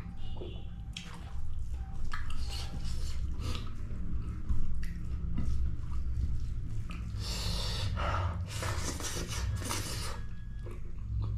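A person eating close to the microphone: pork fry and rice being chewed, with irregular clicks and scrapes from the plate, over a steady low hum.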